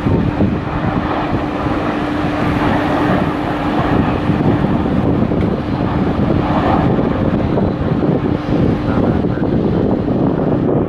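Jet airliner engines running on landing approach: a loud, steady rushing noise with a constant hum underneath.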